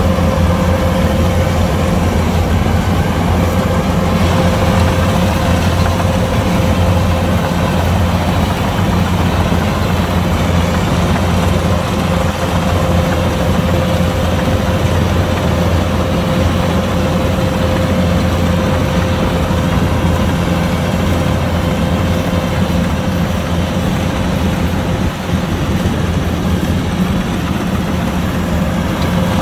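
Kubota DC-105X combine harvester running steadily, its engine and machinery making a loud, even hum with a steady whine over it.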